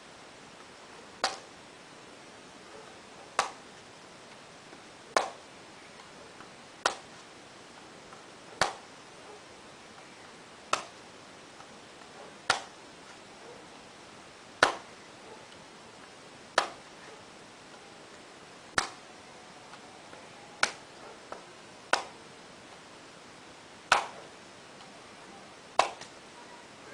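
Wildsteer Wild Tactic tactical knife chopping into a hand-held green coconut to cut it open. About fourteen sharp strikes land roughly every two seconds.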